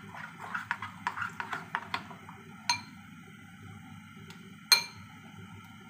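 Kitchen dishes and utensils clinking: a quick run of light clicks in the first two seconds, then two sharp, ringing clinks about two seconds apart, over a low steady hum.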